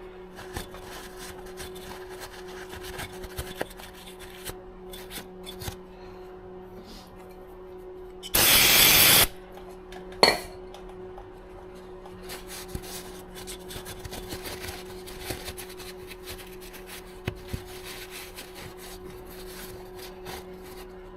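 Hand work on car parts: small rubbing, scraping and clicking sounds over a steady low hum. About eight seconds in comes a loud hiss lasting about a second, and a sharp knock follows a second later.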